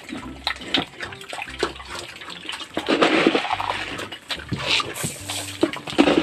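A sow and her piglets eating wet feed: slurping and chewing with many short smacking clicks, and louder wet bursts about three seconds in and again near the end.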